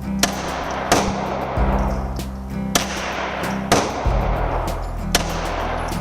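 .22 LR pistol shots from a GSG 1911 firing CCI Mini Mags: about five sharp cracks at uneven intervals. Background music with a steady bass line plays throughout.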